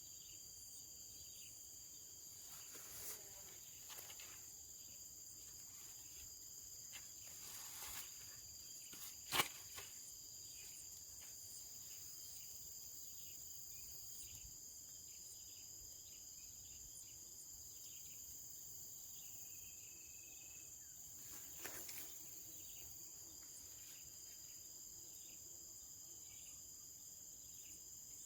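Steady high-pitched chirring of an insect chorus. A few faint clicks and knocks break in, the sharpest about nine seconds in.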